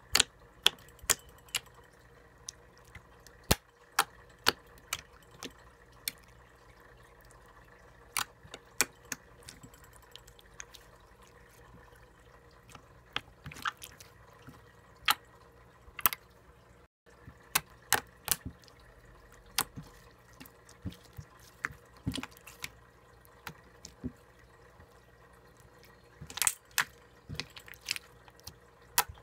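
Slime being squeezed, folded and stretched by hand, giving irregular sharp wet clicks and pops as trapped air bursts, with a close cluster of pops near the end.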